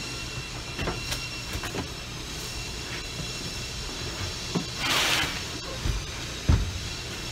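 Packaging being handled and pulled off a boxed electric breaker hammer: scattered light clicks and knocks, a short rasping burst about five seconds in, and a low thump near the end, over a steady background hum.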